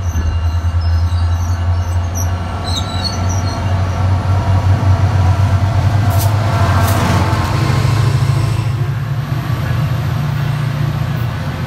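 SunRail bi-level push-pull commuter train rolling past at close range, its diesel locomotive's engine drone loudest as the locomotive goes by about six seconds in. The drone then rises a little in pitch and fades as the train pulls away.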